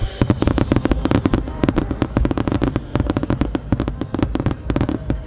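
Fireworks bursting: a dense run of sharp pops and crackles, several a second, over a low rumble.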